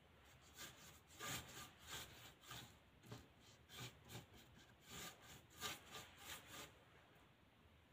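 Paintbrush rubbing and scraping across a plywood board, faint, in short repeated strokes about two a second, stopping near the end.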